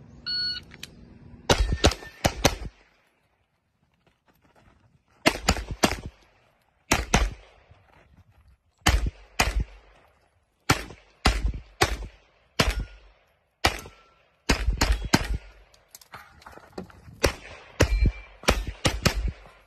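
An electronic shot timer beeps once, then a handgun fires quick pairs and short strings of loud shots, with pauses of a second or so between groups.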